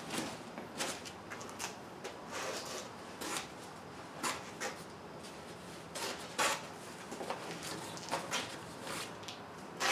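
Synthetic camouflage fabric cover rustling and crinkling as it is tucked and smoothed by hand around a kayak's cockpit opening, with irregular short crackles.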